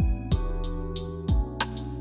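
Background music with a steady electronic beat: kick drum and hi-hats over held synth notes.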